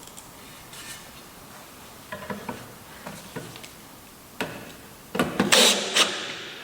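Wooden pieces being handled in a woodworking shop: a few light knocks and clicks, then about five seconds in a louder, rough rasping noise lasting around a second and a half.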